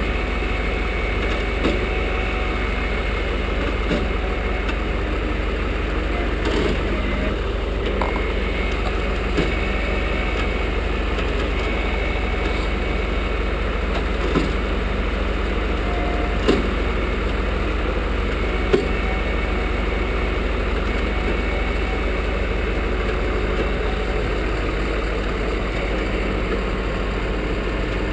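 Vehicle engine idling steadily, with a few light knocks or clicks now and then.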